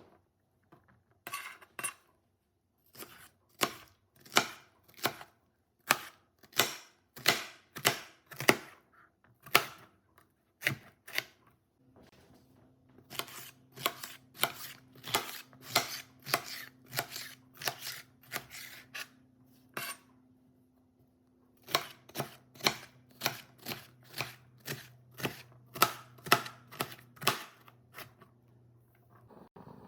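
Kitchen knife chopping vegetables on a cutting board: a run of sharp, evenly spaced strokes, a little under two a second, with a short pause about two-thirds of the way through.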